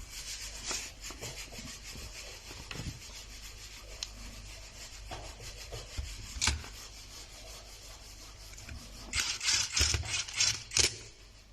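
Plastic heat gun housing and internals being handled and fitted together by hand: light rubbing and scraping with scattered small clicks, then a run of quick scrapes about nine seconds in.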